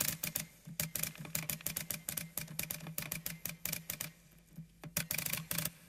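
Typewriter keys striking the paper in quick, uneven succession as a line of text is typed, with a brief pause a little past four seconds before the typing resumes.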